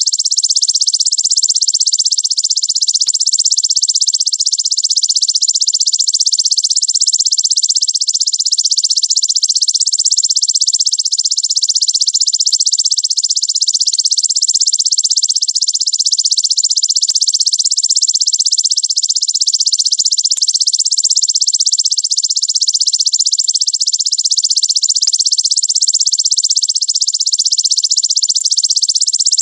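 Belalang raja (king grasshopper) calling in a fast, dense, unbroken high-pitched buzz of very rapid pulses, held steady.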